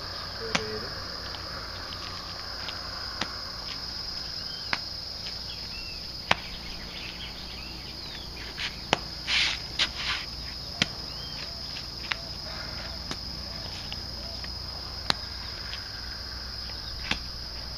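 Lump of clay slapped and pressed by hand on a concrete slab to soften it, giving sharp single slaps every second or two, with a short louder patch about halfway. A steady high-pitched insect drone runs underneath, with a few small bird chirps.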